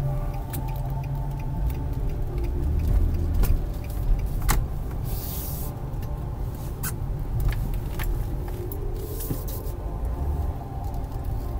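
Car interior sound while driving slowly: a steady low engine and road rumble heard from inside the cabin, with a few sharp clicks.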